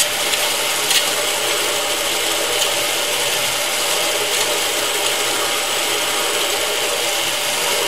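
Belt grinder turning slowly while the point of a large drill bit, held by hand, scrapes shavings off its spinning wheel: a steady rasping scrape, with a couple of sharp clicks in the first second. The wheel is being trued down so that the belt tracks the same in reverse as forward.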